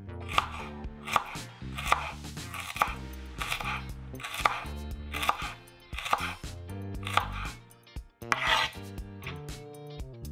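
Chef's knife slicing a garlic clove on a bamboo cutting board: slow, even knife strikes on the board, a little under a second apart.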